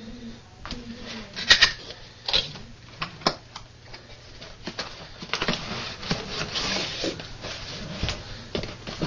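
A cardboard box being opened by hand: a few sharp clicks and taps as the flaps are pulled open, then rustling and scraping as a padded pouch is slid out of the box.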